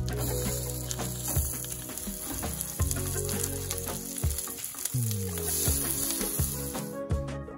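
Eggs and chicken frankfurter rings sizzling in olive oil in a non-stick frying pan, with a slotted spatula scraping and knocking against the pan now and then as they are turned, over background music.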